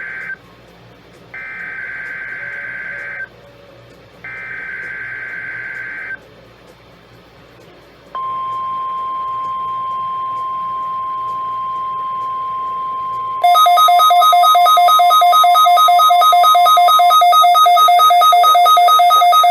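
NOAA Weather Radio SAME header data bursts: the end of one burst and two more warbling bursts, each about two seconds long. About two seconds later comes the steady 1050 Hz weather radio alarm tone. About five seconds after the tone starts, a much louder, harsh pulsing buzz with many overtones cuts in over it and carries on after the tone stops.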